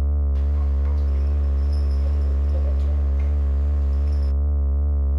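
Low, steady drone of a horror-film soundtrack, with slowly wavering higher overtones above it. A faint hissing layer comes in about half a second in and drops out about four seconds in.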